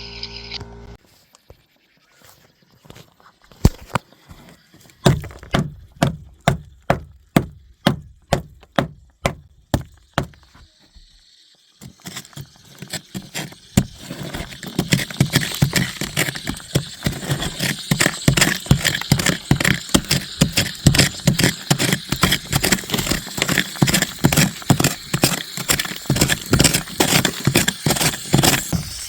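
Repeated hammer blows on a hard floor, a bit under two a second, breaking it open at the suspected spot of a leaking PB heating pipe. After a short pause the blows go on with a steady hiss beneath them.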